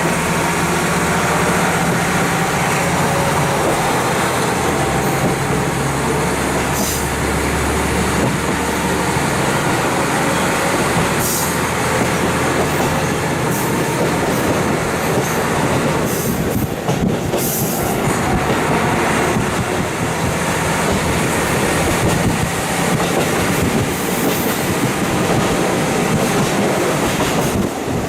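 KiHa 40 diesel railcar running along the line, heard through a fully open window: steady rushing wheel-and-rail noise with rail clatter. A low diesel engine hum fades out about halfway through.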